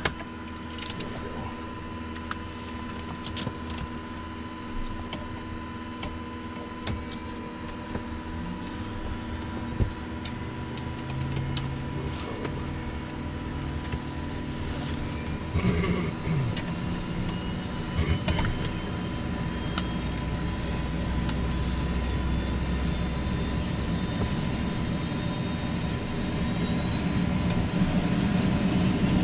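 King Air A100 cockpit during engine start: a steady electrical hum with a few switch clicks, then the Pratt & Whitney PT6A turboprop spooling up. Its thin whine rises slowly in pitch from about halfway, and the whole sound grows steadily louder toward the end.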